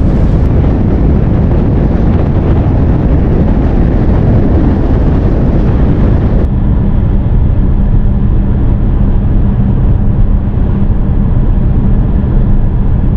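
Strong sandstorm wind buffeting the microphone: a loud, continuous low rumble. About halfway through it turns duller, with a faint low hum underneath.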